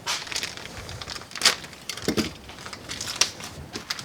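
Pliers gripping and unscrewing the old antenna mast from its fender base: irregular clicks and scrapes of metal on metal, with a few louder strokes.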